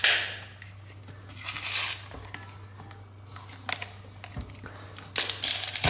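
Frozen cardboard phone box being handled and worked loose by hand: crinkling, tearing and crackling of stiff, iced-up paperboard, with a loud rustle at the start, another about two seconds in and a third near the end, and a few light clicks and taps between.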